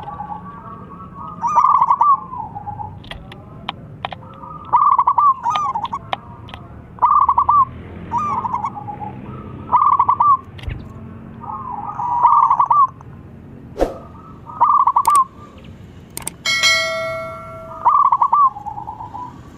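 Zebra dove (perkutut) cooing, a loud phrase of warbling coos every two to three seconds. Near the end a short bell-like chime rings for about a second.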